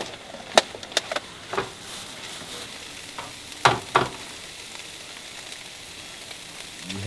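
Ground turkey, onions and peppers sizzling in a pan on a camp stove, with a spatula scraping and clacking against the pan several times in the first four seconds.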